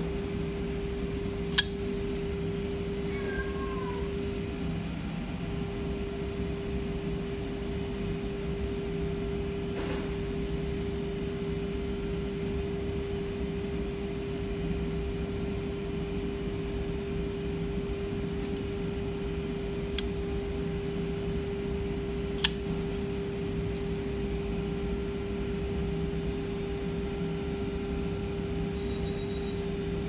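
Sharp clicks of a Kubey KU236I liner lock folding knife as it is flipped open and closed on its ceramic ball-bearing pivot, the blade snapping into lock-up. The loudest clicks come about a second and a half in and again about 22 seconds in, with fainter ones around 10 and 20 seconds, over a steady hum.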